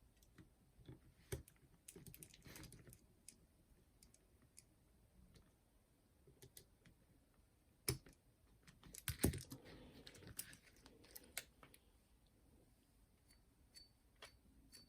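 Faint, scattered clicks and light knocks of small plastic and metal parts of a boombox's cassette mechanism being handled, with the sharpest clicks about 8 and 9 seconds in.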